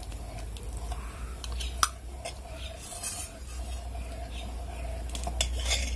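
Steel ladle stirring milky rice kheer in a steel pot, scraping and clinking against the metal, with a few sharp clinks, the loudest about two seconds in, over a low steady hum.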